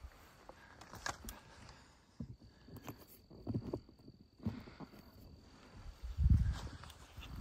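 Woodland quiet with scattered soft rustles and low thumps, and a thin, steady, high insect tone for a few seconds in the middle. Near the end comes a louder low thump.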